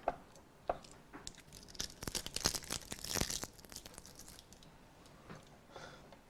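Handling noise from placing a small plastic webcam: a busy run of small clicks, scrapes and crinkling for the first few seconds, then a few faint rustles near the end.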